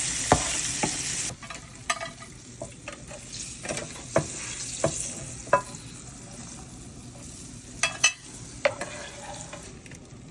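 Hot oil and browned chicken-liver drippings sizzling in a frying pan, loud at first, then dropping off suddenly about a second in. A utensil stirring, knocking and scraping against the pan makes sharp clicks through the rest.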